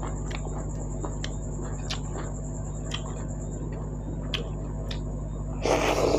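Close-up eating sounds: wet chewing and lip smacks with scattered small clicks, over a steady low hum. A louder, noisier burst of about half a second comes near the end.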